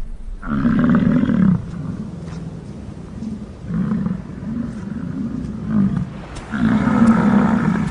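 American bison bulls bellowing in the rut: deep, pulsing roars, a long one about half a second in, a shorter, weaker one near the middle and another long one near the end.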